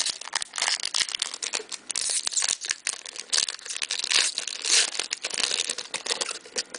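Foil wrapper of a baseball card pack being torn open and crinkled by hand: a run of irregular, crackly rustling.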